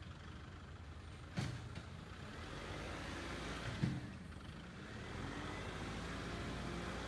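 Kubota diesel engine running steadily, with two sharp knocks, one about a second and a half in and another about four seconds in.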